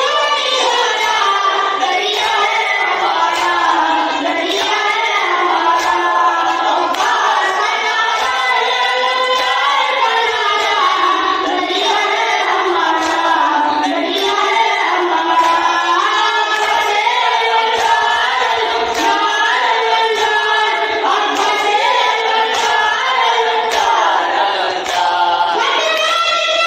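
A boy reciting a noha, a Muharram lament, into a microphone, with men's voices joining in chorus. A steady beat of hand slaps from matam, ritual chest-beating, keeps time with it.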